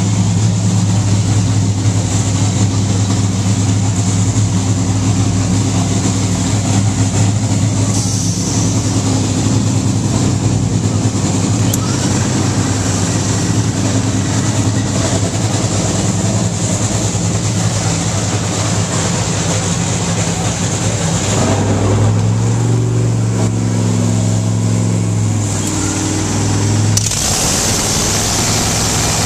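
Top Fuel dragster's supercharged V8 running in a pit warm-up, idling with a steady low note. About 22 seconds in its note changes, and near the end a harsher, hissing rush takes over.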